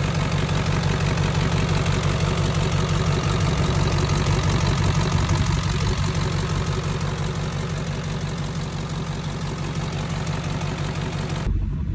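Ford 7.3 Powerstroke turbo-diesel V8 idling steadily on its first run after the fuel system rebuild, with the typical diesel clatter; the owner hears an exhaust leak at an up-pipe.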